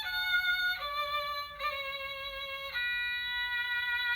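Violin sound effect from a children's sound board book's built-in sound chip: a short bowed violin phrase of held notes that steps downward, the last note sustained.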